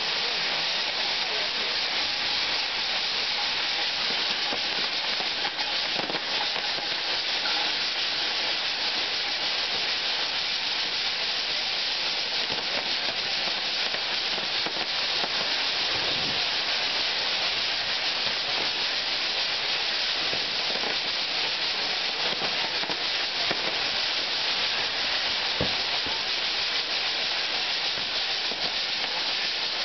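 Ground fireworks (nar tal-art): a spinning firework wheel's fountains burning with a loud, steady hiss, and a few faint cracks.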